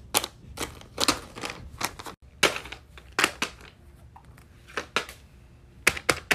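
Irregular sharp clicks and taps, two or three a second, from fidget toys being handled, with a quieter gap around four seconds in and a quick cluster of clicks near the end.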